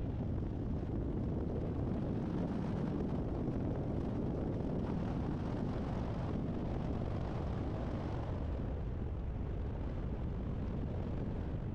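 A car driving at a steady pace: an even rumble of tyres and engine.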